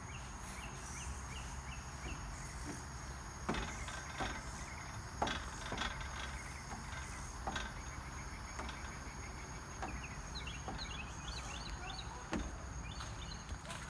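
Evening outdoor ambience: a steady high insect drone with short bird chirps, over a low steady rumble. A few scattered knocks, about every two seconds, from a child's footsteps on the playground bridge and steps.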